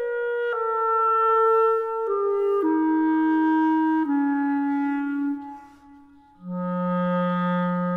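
Background music: a solo melody on one instrument, a run of held notes stepping downward. It breaks off briefly about six seconds in, then picks up on a low note.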